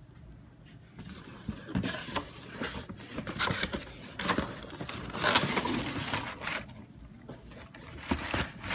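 A shoebox scraping and sliding against the cardboard of a shipping carton as it is pulled out, with rustling and irregular knocks of cardboard being handled.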